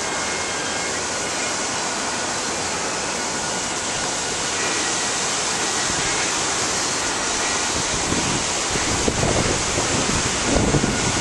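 Steady rush of river water flowing through rapids below the bridge. From about eight seconds in, gusts of wind buffet the microphone.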